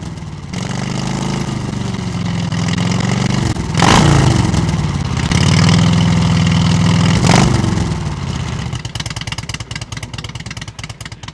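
Motorcycle engine revving, its pitch climbing and dropping twice, loudest at about four and seven seconds in. After that it falls back to a rough, uneven idle that fades.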